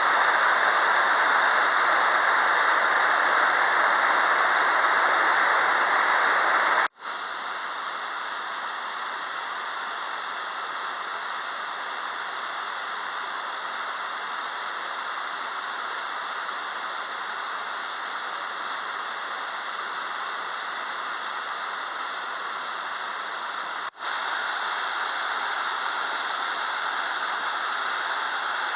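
Waterfall on a river, a steady rush of falling water. The sound cuts off abruptly twice, about a third of the way in and again near the end, and is quieter in the middle stretch than before and after.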